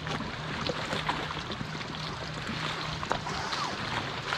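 Water lapping and trickling around the boat and the shoreline rocks, with scattered small clicks and knocks and a faint steady low hum.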